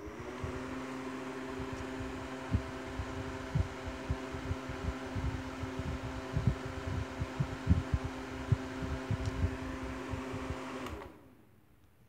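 O2 Cool FD08006A 8-inch box fan running on its low speed: a steady motor hum with several fixed tones and irregular low thumps. About eleven seconds in it is switched off and the hum dies away quickly.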